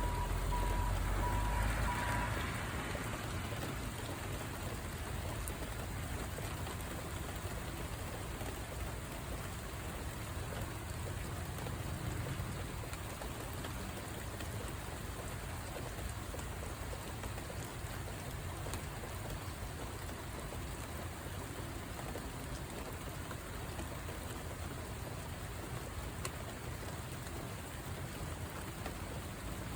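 Steady rain falling, an even hiss throughout. In the first two seconds a few short, evenly spaced beeps at one pitch sound over it, with a low rumble.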